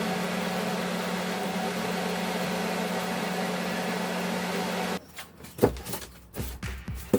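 Steady hum of a small electric motor running, which cuts off suddenly about five seconds in. Background music with a beat follows.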